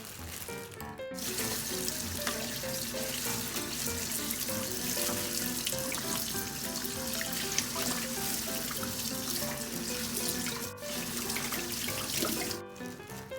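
Water running steadily from a kitchen tap into a sink, starting about a second in, with a brief break near the end, over background music.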